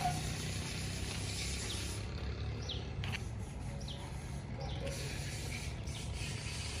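Outdoor background noise: a steady low rumble under a faint hiss, with a few short, thin high chirps around the middle.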